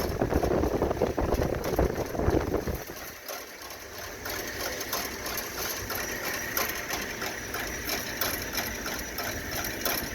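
Drive motor and gear mechanism of a Minit Pop popcorn machine running, gyrating the empty popcorn kettle on a dry run. A heavier clatter for about the first three seconds, then a quieter, steady mechanical whir with fast fine ticking.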